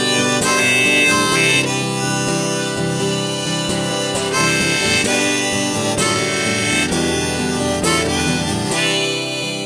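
Harmonica played on a neck rack, carrying the melody over a strummed acoustic guitar in an instrumental break.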